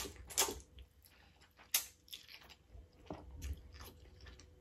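Slurping and chewing a mouthful of Samyang spicy instant noodles: a few short slurps, the loudest at the start, with quieter chewing between them.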